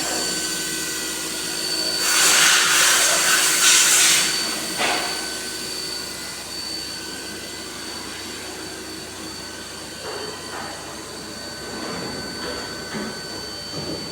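CNC vertical milling machine running, its spindle giving a steady high whine. A loud hiss about two seconds in lasts roughly two seconds, with fainter short bursts later.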